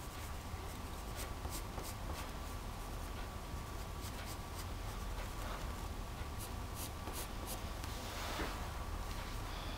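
Blue coloured pencil scratching on paper in short, repeated strokes, over a steady low hum. A brief rustle comes about eight seconds in.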